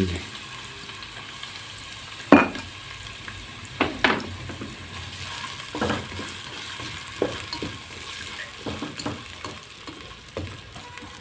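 Chopped onion sizzling as it fries in hot ghee in a nonstick pot, a steady hiss broken by a few sharp knocks on the pot as it is stirred.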